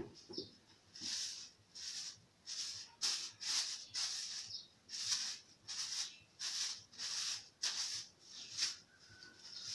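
A child's hand stroking a cat's fur: a regular brushing hiss, about two strokes a second.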